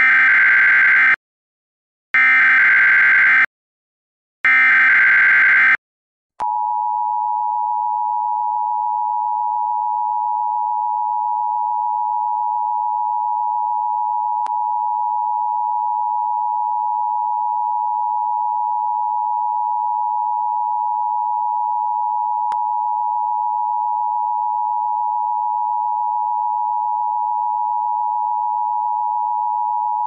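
Emergency Alert System tones: three short, equal bursts of SAME header data, then from about six seconds in the steady two-tone EAS attention signal, held unbroken at one level.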